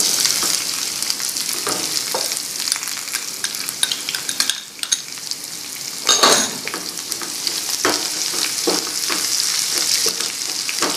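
Chopped onion sizzling in hot oil in a nonstick frying pan, stirred with a wooden spatula that scrapes across the pan in many short strokes. The sizzle jumps up at the start as the onion goes in, and there is a louder clatter about six seconds in.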